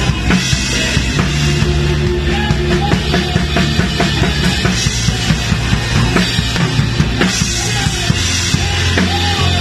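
A live band playing an upbeat rock-style worship song, with an acrylic-shell drum kit up front: a steady beat of kick and snare hits with cymbal crashes over sustained low bass notes.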